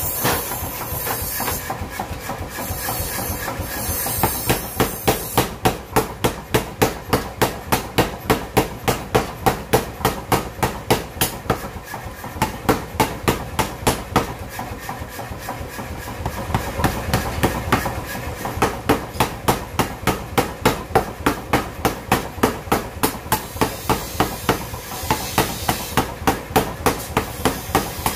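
A mechanical power hammer pounds a red-hot bearing-steel blade blank in a fast, even rhythm of about three blows a second. The blows start a few seconds in over the machine's running noise and break off briefly twice.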